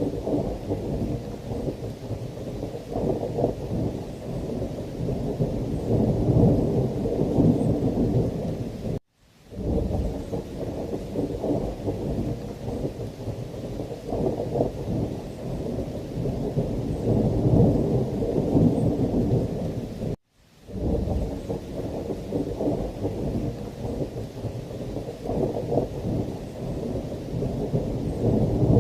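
Thunderstorm ambience: a dense, low rumble of rolling thunder over rain, swelling and easing. It cuts out abruptly for a split second twice, about nine and twenty seconds in, where a short recording loops back on itself.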